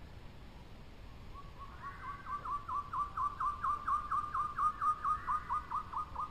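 A rapid run of short, high, bird-like chirps, about four to five a second, starting a little over a second in and growing louder.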